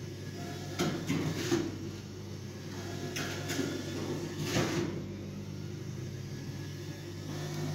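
A few knocks and clatters, like things being handled, over a steady low hum.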